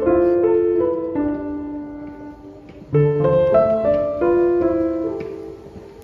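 Background music on solo piano: a short phrase of struck notes that fades away, then starts again about halfway through.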